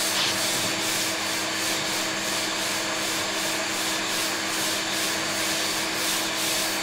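Sanding block with 120-grit paper rubbing backwards and forwards over body filler on a steel van door, a steady rasping at about two strokes a second, with a steady hum underneath. The filler is being blocked flat to shape.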